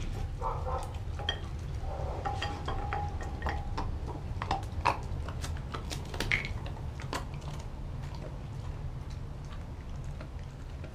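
A German Shepherd mix eating raw dog food: chewing and licking with irregular sharp clicks and taps from its teeth and the glass bowl, then picking up scraps from the floor.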